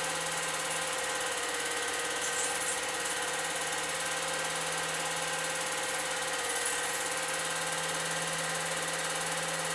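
Motor and film mechanism of an 8mm film projector running, a steady mechanical whir with an even hum.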